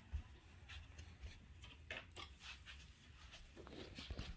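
Faint handling sounds: small clicks, light thumps and rubbing as plastic retaining strips are pressed onto the metal edge of an LED TV backlight panel.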